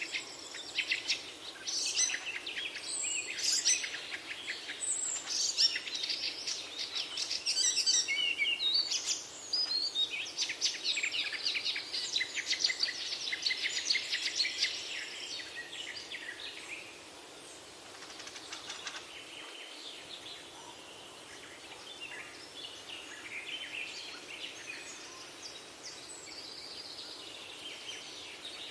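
Many small birds chirping and singing at once in a dense chorus of quick high calls, busiest in the first half and thinning out to scattered calls after about sixteen seconds.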